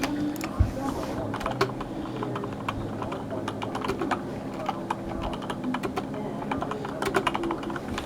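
Computer keyboard keys clicking in irregular typing, several keystrokes a second, over a faint steady low hum.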